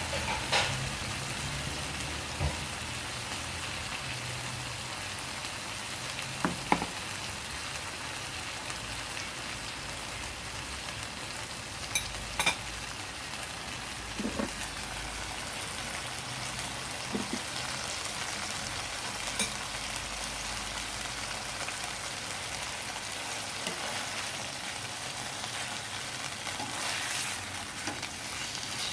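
Boneless chicken thighs frying in hot oil in a pan, a steady sizzle throughout, with a dozen or so short knocks scattered through it.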